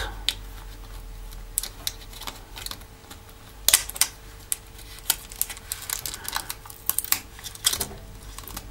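Irregular small clicks and taps of a plastic spudger working at the ribbon-cable connectors on a Nexus 7 tablet's circuit board as the cables are released, over a faint steady hum. The loudest click comes a little under four seconds in.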